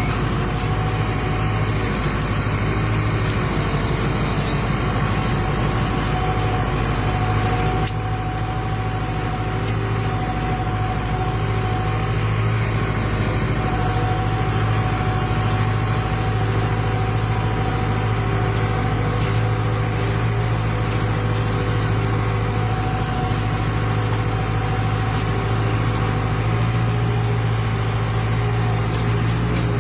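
Fiat 766 DT tractor's diesel engine running steadily under load while pulling a plough.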